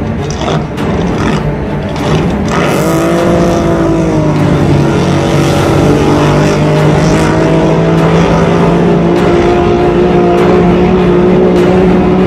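Racing powerboat engine at full throttle over a noisy rumble. Its whine rises sharply nearly three seconds in, then holds at a high, nearly steady pitch as the boat runs down the course.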